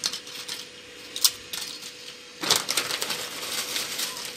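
Crinkle-cut potato chips being spread by hand in a glass baking dish: dry crackling and light clicks as the chips knock against each other and the glass, thickest for about a second near the middle.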